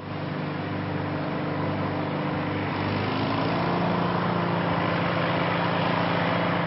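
Vintage Ferguson-type tractor engine running steadily, with the engine speed rising slightly about three seconds in.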